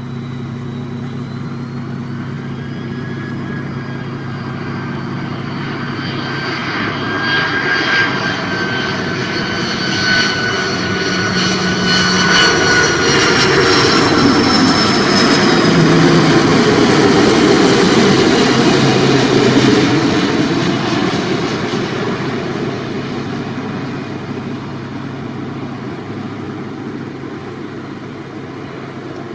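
China Airlines Airbus A330-300 on final approach passing low overhead: its twin turbofan engines whine, with high tones gliding slowly down in pitch as it nears. The jet noise swells to its loudest about halfway through as the aircraft passes over, then fades as it flies away.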